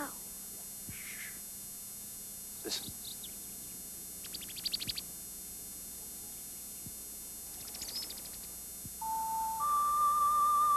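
Wooden bird whistle blown to imitate birdsong: scattered short chirps and two quick warbling trills. From about nine seconds in it gives a steady whistled note that steps up in pitch and wavers slightly.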